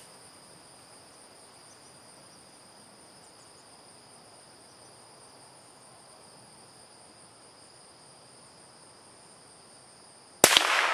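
Steady high-pitched drone of insects, then near the end a single shot from a CZ 452 American .22 LR bolt-action rifle: one sharp crack with a short trailing decay.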